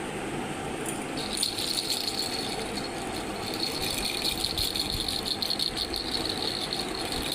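Continuous fine rattling, many small ticks in quick succession, starting about a second in.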